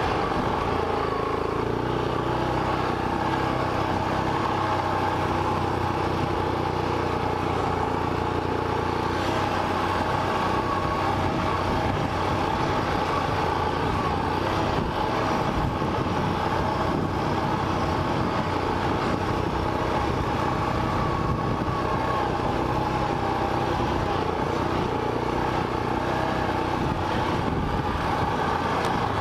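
ATV (quad) engine running at a fairly steady pitch while the quad is ridden along a dirt trail, heard from the rider's mounted camera.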